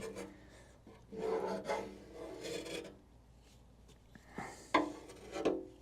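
Faint rasping scrapes and rubbing, then a few light, short knocks near the end.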